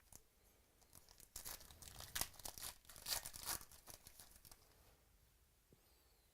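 A trading-card pack's wrapper being torn open and crinkled by hand: a cluster of sharp crackles lasting about three seconds, starting about a second in.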